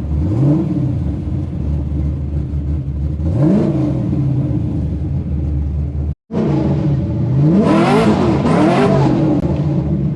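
LS3 V8 in a swapped Nissan 350Z idling with two short blips of the throttle, then, after a brief cut, several quick revs in a row near the end. The owner says the header gasket has blown, giving an exhaust leak at the header.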